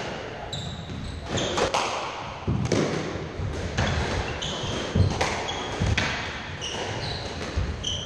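Squash rally: the ball is struck by rackets and smacks off the walls and floor again and again, while shoes squeak briefly and often on the wooden court floor.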